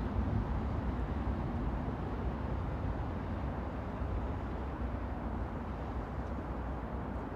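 Steady low rumble of a moving train, with no distinct clacks or horn.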